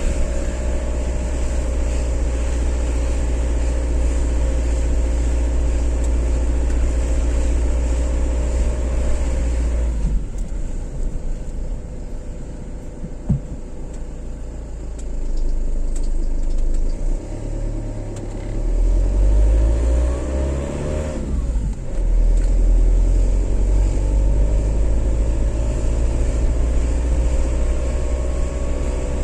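Car driving along a highway: steady engine and road rumble, easing for a few seconds near the middle, then the engine note rises and drops as the car speeds up and changes gear before settling back to steady cruising.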